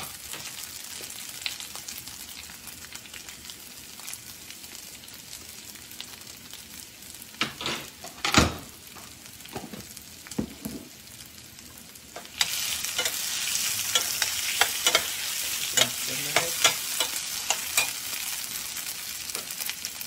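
Potato pieces frying in ghee in a stainless steel pan: a steady sizzle with a few sharp knocks of the metal slotted spatula against the pan about eight seconds in. About twelve seconds in the sizzle suddenly gets much louder, with more spatula clicks and scrapes.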